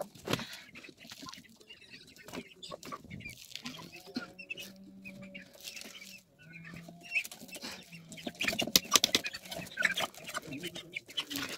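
Chickens clucking close by while a metal spoon scrapes and clinks against plastic bowls and a metal pot as cooked rice is served. The clinking is loudest a little past halfway.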